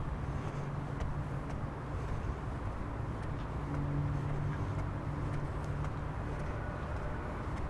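A motor vehicle's engine running steadily with a low hum that swells slightly about halfway through, over general street traffic noise.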